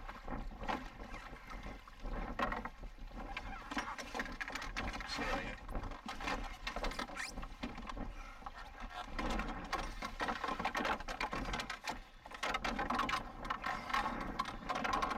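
Choppy water splashing and slapping against a canoe, with irregular knocks and clatter throughout.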